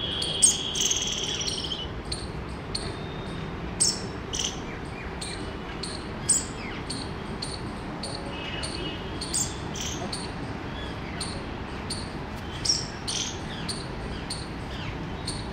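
Outdoor ambience under trees: short high bird chirps come now and then at irregular moments, a few of them louder, over a faint regular high ticking and a steady low background rumble.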